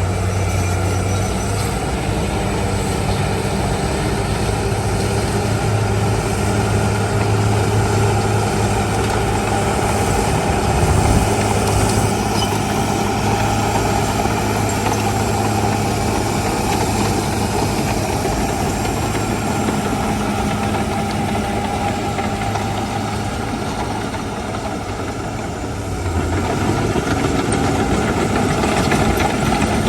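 Heavy diesel engine of earthmoving machinery running steadily with a constant low hum, easing off slightly and then picking up again near the end.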